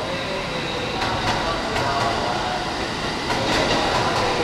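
Electric commuter train running past on station tracks: a steady rolling rumble with wheel clicks over the rail joints every so often.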